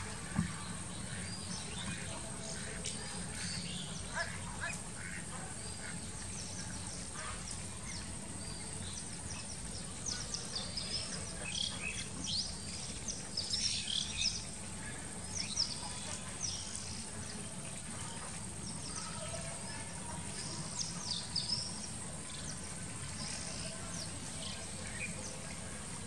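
Birds calling in short, high chirps that come in clusters, busiest from about ten seconds in and again later, with domestic ducks on the pond giving occasional quacks. A steady low hum runs underneath.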